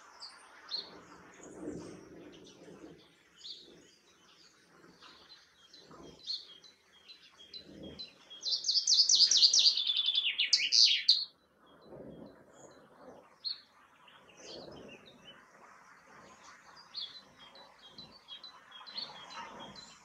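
Male common chaffinch singing one full song phrase about eight seconds in: a fast rattle of notes stepping down in pitch, closed by a short flourish, lasting under three seconds. Faint chirps of other birds sound before and after.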